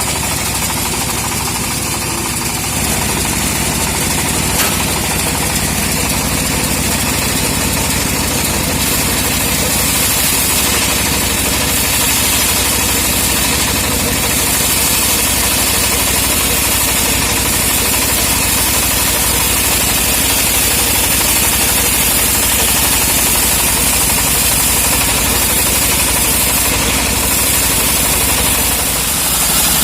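Engine-driven wood saw running steadily while cutting teak, the engine note even with a constant high hiss of sawing.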